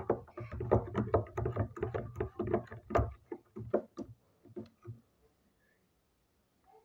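A spoon stirring a cup of hot chocolate, clinking and knocking against the cup several times a second, dying away about five seconds in.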